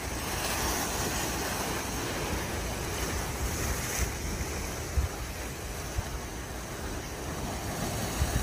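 Choppy bay waves washing and splashing against the rocks along a concrete jetty, with gusty wind buffeting the microphone in low rumbles.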